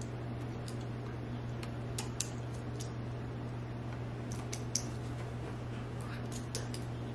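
Room tone: a steady low hum with a few scattered light clicks and ticks, the sharpest a little under five seconds in.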